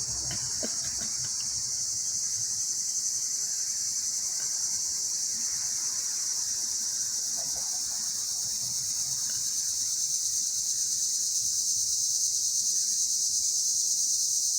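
A steady, unbroken chorus of many insects, high-pitched and even.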